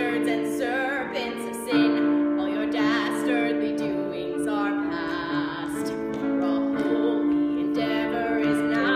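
A woman singing a show tune with vibrato, accompanied by a keyboard playing held chords.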